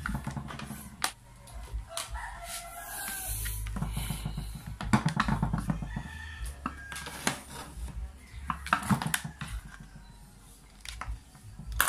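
A rooster crowing in the background, together with clicks and knocks as a Makita electric planer's plastic body is turned over and handled by hand.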